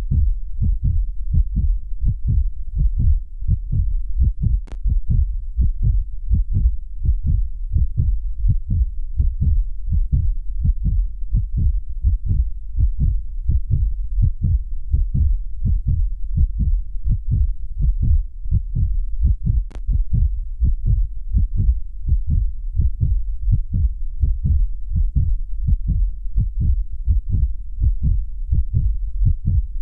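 Human heartbeat beating in a steady rhythm of low, dull beats, with two faint clicks about five and twenty seconds in.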